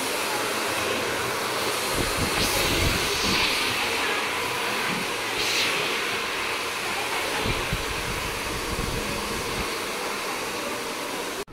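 Handheld hair dryer running steadily at full blow, its airflow buffeting now and then as it is moved around the head.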